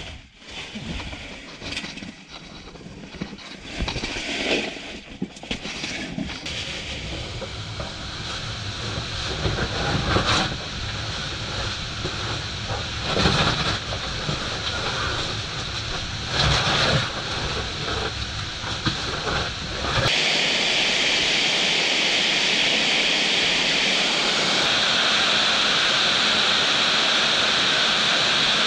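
Scuffs, scrapes and knocks of cavers crawling over rock through tight squeezes. After a cut about two-thirds of the way in, a steady loud rush of falling water echoes in a cave shaft.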